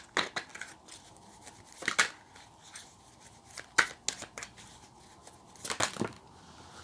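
Tarot deck being shuffled by hand: sharp card slaps and swishes about every two seconds, with softer rustling of the cards between.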